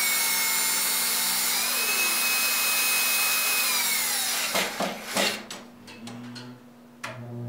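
Ryobi cordless drill-driver spinning a screwdriver bit on a 3-foot extension, driving a screw. Its motor whine rises in pitch about two seconds in, drops back, and stops about four and a half seconds in, followed by a few sharp clicks.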